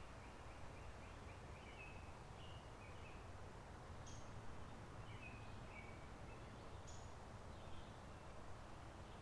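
A faint, steady rush of creek water and soft wind, with songbirds giving short chirping calls throughout. There are a couple of brief, high, sharp notes about four and seven seconds in.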